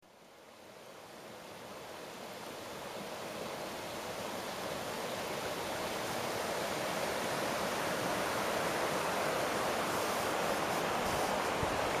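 Shallow rocky mountain river rushing over stones, a steady rush of water that fades in over the first few seconds.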